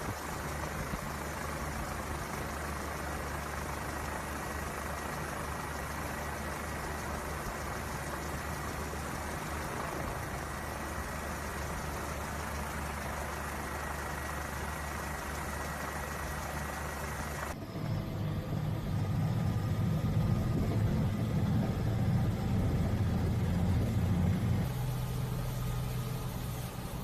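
A motor vehicle's engine running steadily. About two-thirds of the way through there is a sudden cut to a louder, deeper engine rumble, which changes again near the end.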